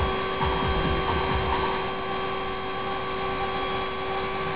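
Steady hum with several pitched tones from the running FlowerPower device and its spinning rotor, over an uneven low rumble.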